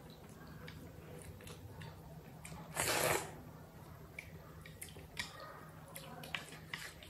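A person eating noodle soup: one loud, half-second slurp of thukpa noodles about three seconds in, with wet chewing and small clicks and smacks around it.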